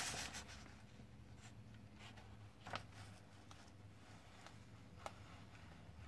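Near silence: room tone with a faint steady hum and a few faint clicks, the plainest about three seconds in and another about five seconds in.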